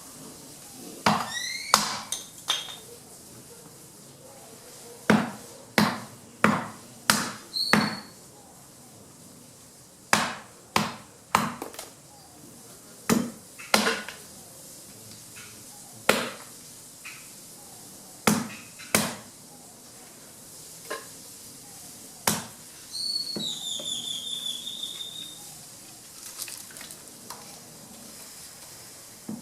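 Branches being chopped by hand into wood chips: sharp chopping strikes of a blade into wood, irregular and often in quick runs of two to five. A high whistled chirping call sounds about a second in and again, longer, around three quarters of the way through.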